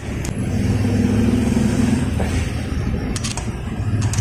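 A motor vehicle engine running steadily, a little louder in the first two seconds, with a few light metallic clicks of a steel tool against a valve spring retainer.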